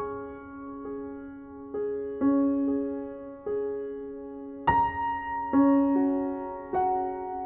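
Slow, gentle piano background music, with soft chords struck about once a second and left to ring.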